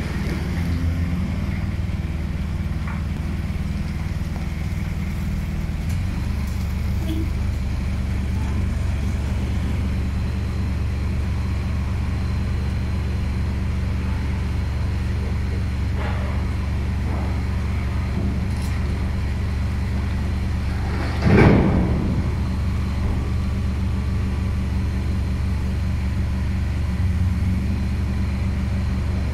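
Genie Z-45/25J articulating boom lift's power unit running with a steady low hum as the boom is operated, its note changing about six seconds in. A brief louder noise swells and fades about twenty-one seconds in.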